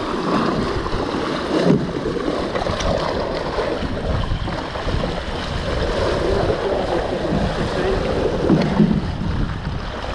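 Steady wind noise on an action camera's microphone, with water rushing and splashing past the hull of an F16 Viper sailing catamaran under way.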